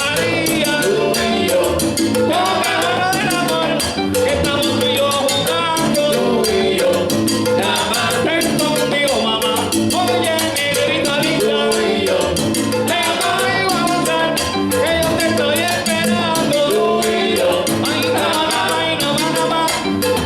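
Live salsa band playing: dense percussion with timbales, bass and melodic parts, with singing.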